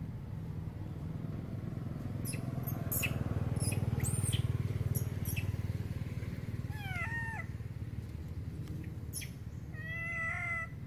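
Macaque coo calls: a short run of quick rising-and-falling notes about two-thirds through, then one higher call held for under a second near the end. A steady low rumble and a few faint clicks lie underneath.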